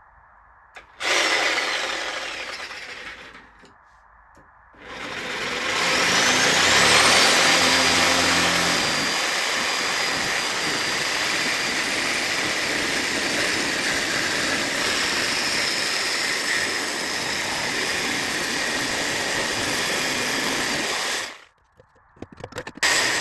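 Electric angle grinder on metal: a short run about a second in that winds down with a falling whine, then a spin-up with a rising whine into a long steady run that stops suddenly near the end.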